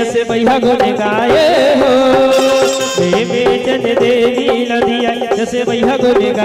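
Live Chhattisgarhi jas devotional music: a melodic line with pitch bends over a steady, busy dholak rhythm.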